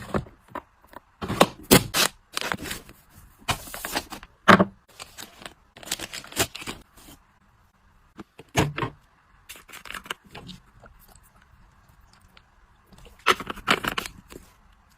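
Household items and packaging being handled: bursts of rustling and scraping with sharp clicks and knocks, the busiest in the first few seconds, a lull about two-thirds of the way through, and a short flurry near the end.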